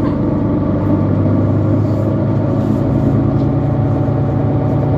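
Mercedes-Benz Citaro C2 city bus engine running at a steady pitch, heard from inside the bus.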